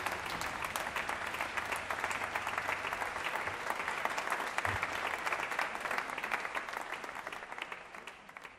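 Audience applauding: dense clapping from many hands, fading away near the end.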